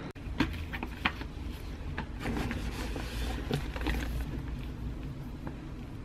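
Rustling and irregular light clicks of a leather backpack and a wool coat being handled, over a steady low rumble.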